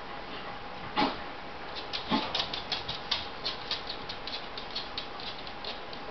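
An adult dog licking young puppies: a fast run of small wet clicks, about five a second, after two short louder sounds about a second and two seconds in.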